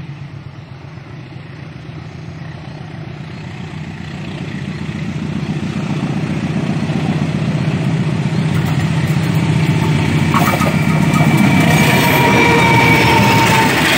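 Diesel-hauled passenger train approaching, its locomotive's engine hum growing steadily louder. About two-thirds of the way in, a high metallic squeal and a hiss from the passing train join the engine sound.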